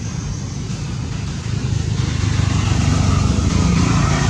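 A motor vehicle's engine running nearby, a steady low rumble that grows louder about halfway through as it comes closer.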